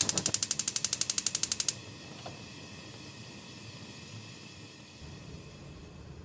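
Gas stove burner's igniter clicking rapidly, about fourteen clicks a second for under two seconds, then a steady low hiss as the burner stays lit.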